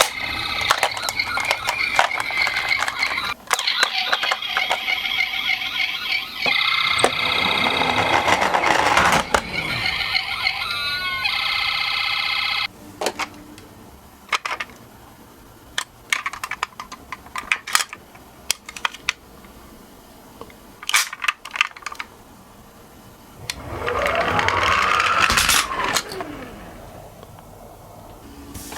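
Toy ambulance's electronic siren sound playing for about the first twelve seconds, then scattered clicks and clacks of small toy cars being handled, with a brief whirring sweep about twenty-four seconds in.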